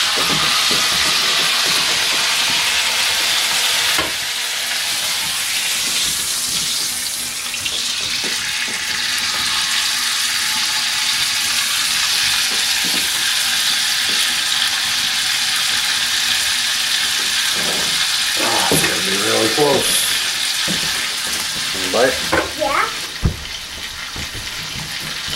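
Venison heart sizzling in a cast-iron skillet over an open hearth fire: a steady frying hiss. Brief voices and a single knock come near the end.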